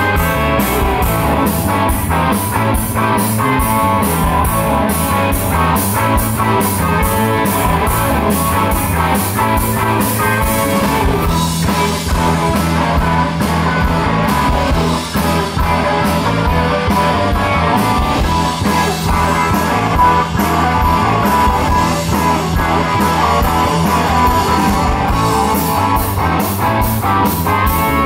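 Live rock band playing: electric guitar over bass and drums. A steady cymbal beat drops out for a while in the middle and comes back near the end.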